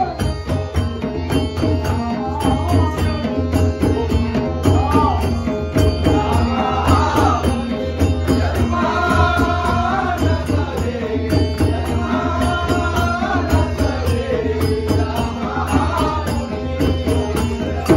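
A group of ghumat drums, clay pots with a skin head over the mouth, played by hand in a steady, fast folk rhythm, with a man singing a traditional Shimga song over them. The singing comes in waves of held, bending notes over the unbroken drumming.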